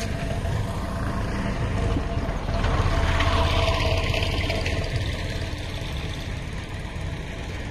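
An engine running steadily, a low hum that swells a little about three seconds in and then slowly eases off.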